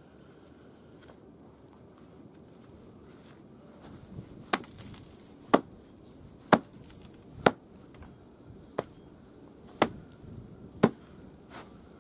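Hatchet chopping on a wooden stump block: about eight sharp, separate blows roughly a second apart, starting about four seconds in, two of them lighter than the rest.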